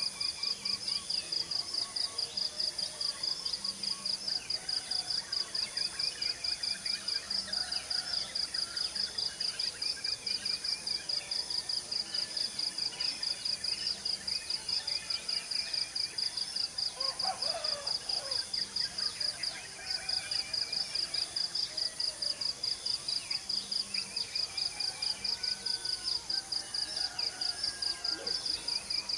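Morning outdoor animal chorus. The loudest sound is a high-pitched chirp pulsing about three times a second without a break. Over it, small birds chirp, and a fowl calls once about 17 seconds in.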